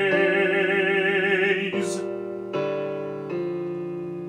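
A baritone voice holds a long sung note with vibrato on the word "gaze", ending about two seconds in. A piano then plays on alone: three struck chords, each fading away.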